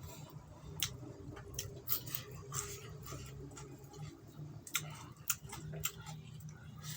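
Close-miked chewing of pork fat, with irregular wet smacking clicks from the mouth over a low steady hum.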